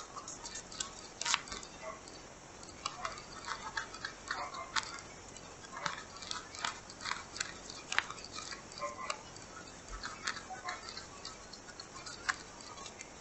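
Small scissors snipping through clear contact paper around a laminated paper card: a long run of quiet, irregular snips and clicks.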